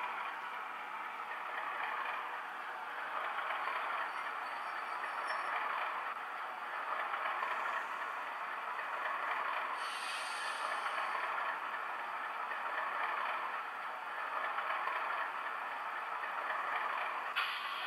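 Sound decoder in a Bachmann OO-gauge Class 37 model playing a recorded unrefurbished Class 37 English Electric diesel engine running, through the model's small speakers. A steady rattling engine sound, with a short brighter hiss about ten seconds in.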